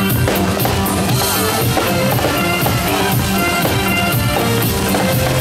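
Music with a steady drum beat, playing continuously.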